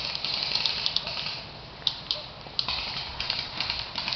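Airsoft guns firing: a scattered run of sharp clicking shots, with two or three louder pops around the middle.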